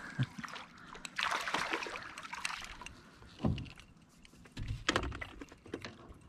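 Water lapping against a small fishing boat's hull, with scattered light clicks and a couple of dull knocks, the first about halfway through.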